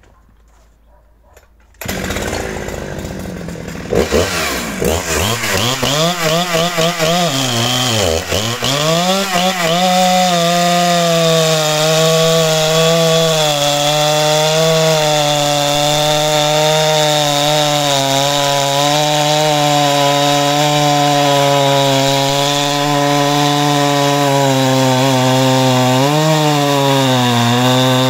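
Husqvarna 394 XP two-stroke chainsaw coming in about two seconds in, revving up and down for a few seconds, then held at full throttle under load, ripping lengthwise down through an upright log round along the grain. The engine note stays steady, with a brief dip near the end as it bogs in the cut.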